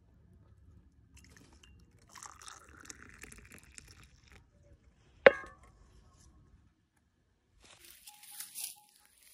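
Hot tea poured from a steel saucepan into a drinking glass, the pitch of the pour rising as the glass fills, about two seconds in. A single sharp knock a little after five seconds is the loudest sound, and a short burst of hiss comes near the end.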